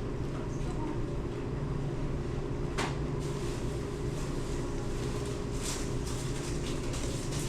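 Steady low mechanical rumble and hum, like the inside of a moving vehicle, with one sharp click a little under three seconds in.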